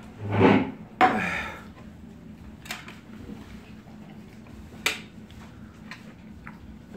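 A yellow metal makgeolli bowl set down with a sharp clack about a second in, ringing briefly, just after a loud breathy exhale from the drinker. Later a metal spoon clicks twice against the dishes.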